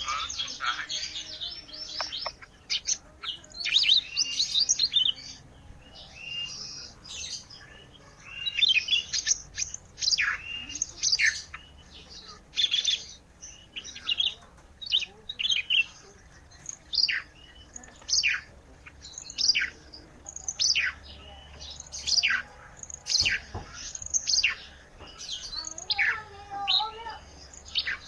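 A songbird of the kind Indonesian bird keepers call 'ranting' singing hard: busy chattering chirps at first, then a steady run of sharp notes that each fall steeply in pitch, about one a second.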